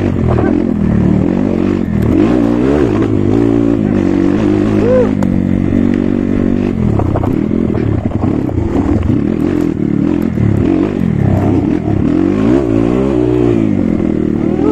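Dirt bike engine, heard from the rider's seat, revving up and down over and over as the bike is ridden along a rough, narrow dirt trail.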